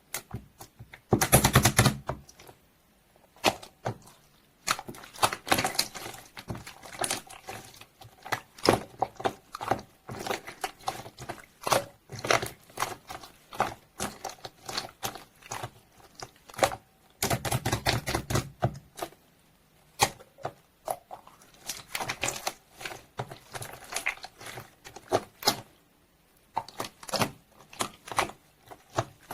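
Slime being handled by hand: quick sticky clicks and pops as it is pressed and poked, with two longer spells of dense squishing, about a second in and around seventeen seconds.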